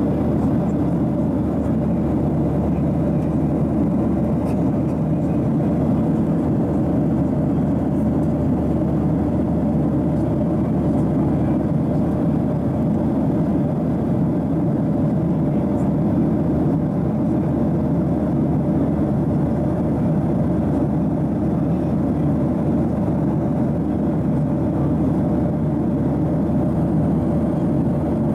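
Steady cabin noise of a Boeing 737-800 in flight, heard from a window seat: an even, low roar of airflow and CFM56 jet engines with a faint steady hum running through it.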